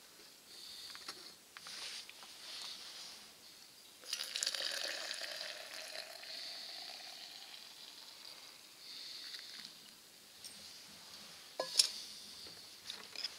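Hot water poured from a metal pot into a stainless steel tumbler of instant coffee mix, starting about four seconds in and running for about four seconds, the pouring sound rising in pitch as the tumbler fills. A single sharp clink follows near the end.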